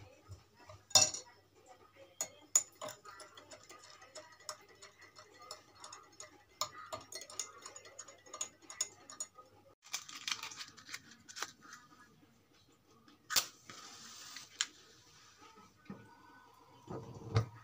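A metal teaspoon clinks lightly and irregularly against a glass as a milky drink is stirred, for about nine seconds. Later comes a sharp scrape with a short hissing flare, a match being struck.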